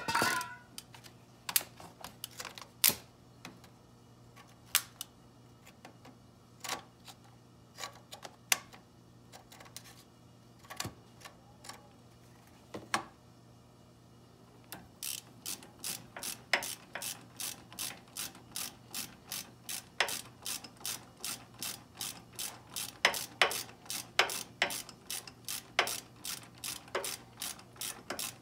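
Hand socket ratchet clicking as it runs in the bolts on a Chevy Tahoe's front brake caliper. Scattered clicks at first, then a steady run of about two clicks a second from about halfway.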